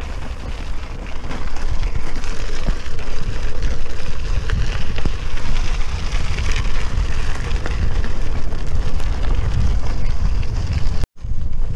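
Wind buffeting the microphone over the crunch and rumble of a bicycle's knobbly tyres rolling along a gravel towpath. The sound cuts out abruptly for a moment near the end.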